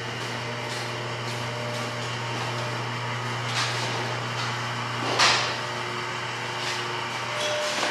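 Steady electric machinery hum, with a few short handling noises and a louder brief clatter about five seconds in.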